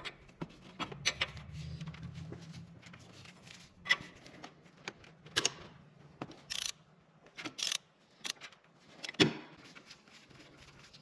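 Scattered metal clinks and knocks from a socket wrench and loose timing parts as the camshaft sprocket is undone on a Nissan HR16DE engine. A low hum sounds in the first few seconds, and the loudest knock comes near the end.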